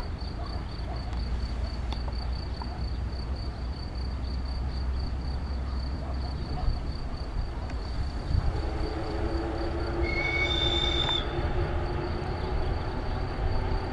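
1962-built Soviet ER1 electric multiple unit running past on curved track: a steady low rumble, with a humming tone joining about eight seconds in. About ten seconds in comes a brief high wheel squeal, lasting about a second.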